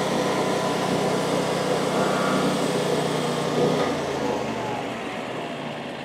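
Frontier OS35 bandsaw sawmill's small gas engine running under load as a dull blade cuts slowly through a cedar log. Over the last two seconds the engine winds down, its pitch falling steadily.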